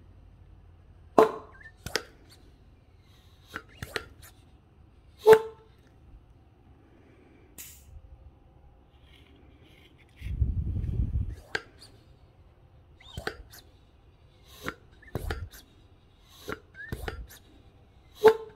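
Hand pump of a cooling-system pressure tester being worked on a coolant reservoir cap: a series of sharp clicks and knocks from the plunger and fittings as the cap is pressure-tested, with a dull low puff about ten seconds in.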